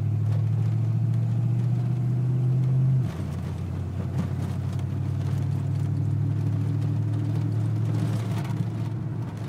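Ford Mustang 5.0 V8 with a full exhaust running under way, its note creeping up for about three seconds, then dropping suddenly and running on steadily. The engine is misfiring: it stumbles, bucks and tends to stall when given gas.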